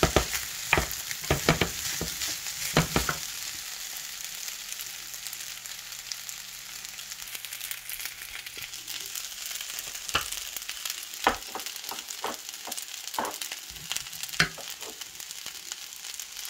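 Shrimp and vegetable fried rice sizzling steadily in a hot pan, with a wooden spoon scraping and turning it: a run of quick strokes in the first few seconds, a calmer stretch, then more strokes in the second half.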